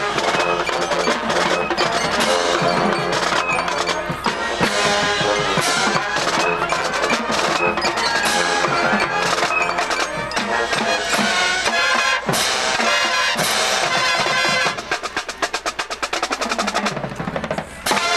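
High school marching band playing on the field, brass with drums and mallet percussion. Near the end the music gives way to a fast, even run of percussion strokes that closes on a final hit.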